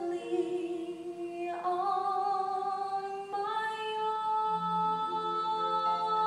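Female voice singing a musical-theatre ballad, holding long notes that step up in pitch twice, with lower accompaniment tones beneath.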